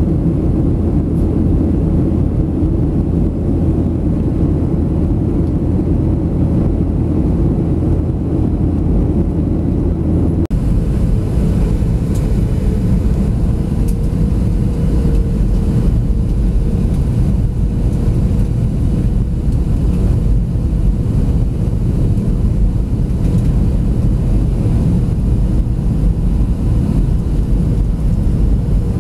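Steady cabin rumble of a Boeing 737-700 in flight, its CFM56 engines and the airflow heard from a window seat over the wing. About ten seconds in it cuts abruptly to the approach for landing with flaps extended, where the rumble goes on with a faint steady hum on top.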